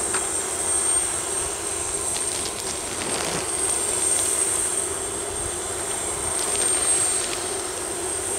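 Turbofan jet engines of an Antonov An-74 running on the ground at idle: a steady high whine over a low hum.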